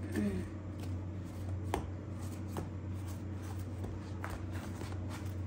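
Soft rustling and light taps of cooked mini pizza bases being picked up and laid out on a cloth towel, with a few sharp clicks, over a steady low hum.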